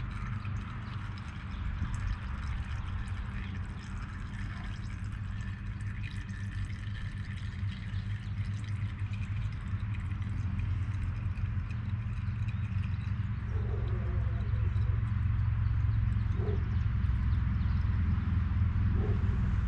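Old engine oil pouring and trickling out of the fill hole of a tipped-over Honda HRX lawnmower into a catch container, over a low steady rumble.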